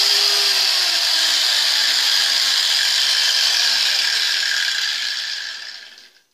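INTERTOOL angle grinder running free with no load: a steady, high whir that dies away near the end as it winds down.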